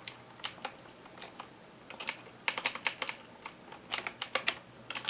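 Keys pressed on a budget mechanical keyboard with clicky Outemu blue switches: irregular sharp clicks, some in quick runs of several presses.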